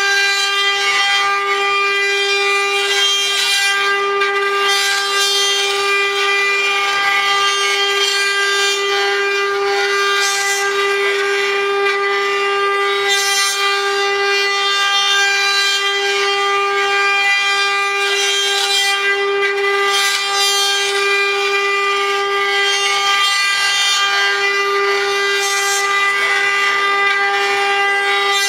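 A JCUT 2415-8R multi-head CNC router carves spinning wooden workpieces on its rotary axes. Its spindles whine at one steady high pitch, over the rasp of the bits cutting wood, with brief flares of higher cutting noise every few seconds.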